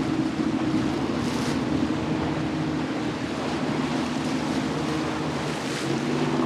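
Motorboat engines droning steadily under the wash of waves, with wind buffeting the microphone and two brief hissing surges, a little over a second in and near the end.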